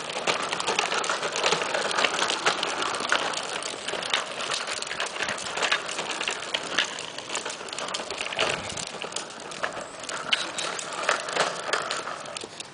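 Hard wheels of a plastic tricycle and a small training-wheel bike rolling over a concrete sidewalk: a continuous gritty crackle with many sharp clicks.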